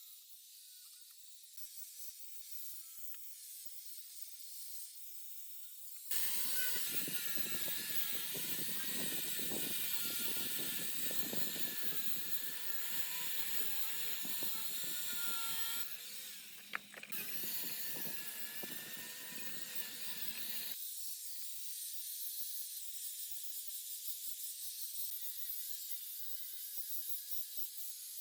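A workshop machine or power tool running with a steady mechanical whine of several fixed tones. It comes in fuller and louder about six seconds in and drops back to a thin high hiss about twenty-one seconds in, with a single sharp click near the middle.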